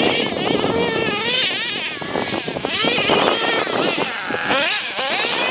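HPI Savage nitro RC monster truck's small two-stroke glow engine running at high revs, its pitch rising and falling again and again as the throttle is worked.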